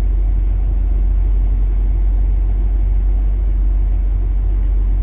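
Excavator's diesel engine running steadily while the machine warms up in sub-zero cold: a low, even rumble.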